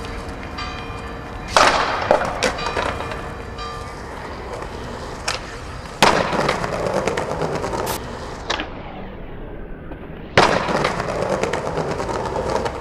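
Skateboard wheels rolling over stone paving, with three sharp clacks of the board: near the start, about six seconds in and about ten seconds in.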